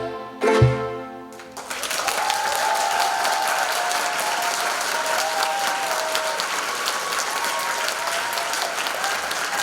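The song's final ukulele chord and cajon hit about half a second in, ringing out over the next second. About a second and a half in, the audience breaks into steady applause.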